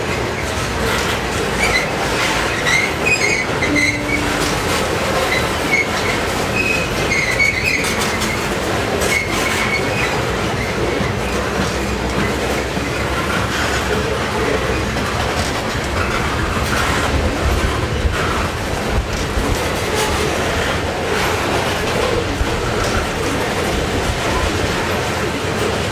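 Freight train tank cars rolling past on steel wheels: a steady rumble with clicking as the wheels cross rail joints. Brief high steel-on-steel squeals come and go in the first third.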